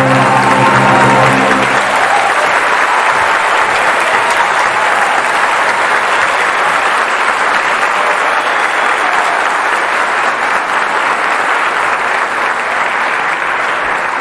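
An orchestra's final held chord dies away about two seconds in, and a theatre audience's applause takes over, steady and loud, easing slightly near the end.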